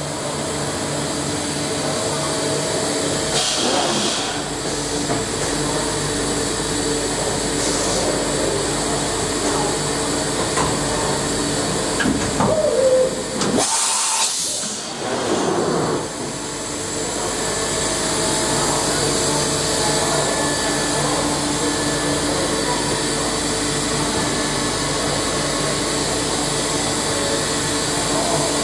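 Mazak Nexus HCN 5000 horizontal machining center running, a steady machine hum carrying several held tones. Brief louder bursts of hiss come a few seconds in and again about halfway through.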